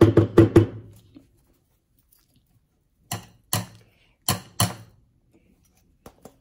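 Sharp knocks of a stainless steel mixer-grinder jar being tapped to shake ground garam masala out into a bowl: a quick run of four at the start, then two pairs of knocks about three and four and a half seconds in, with faint light ticks near the end.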